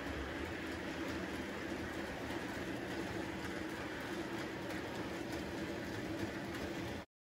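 Model train running along the layout track: a steady hum and rolling rumble with faint clicks from the wheels, cutting off suddenly near the end.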